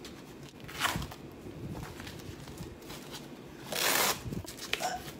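Crinkly plastic packaging bag rustling as it is handled, with a short crackle about a second in and a louder, longer crinkle near the four-second mark.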